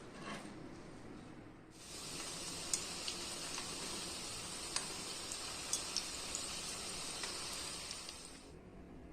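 Chicken doughnuts frying in hot oil: a steady sizzle with scattered sharp pops and crackles. It cuts in about two seconds in and dies away near the end.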